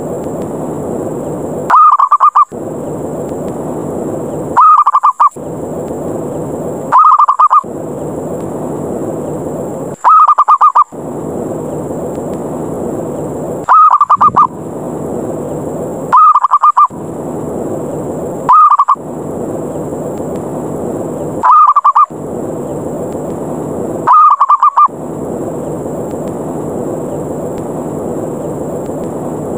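Zebra dove (perkutut) calling: short cooing bursts, nine of them at intervals of two to four seconds, over a steady hiss. This is the dove's challenge call, used as a lure to draw in wild zebra doves.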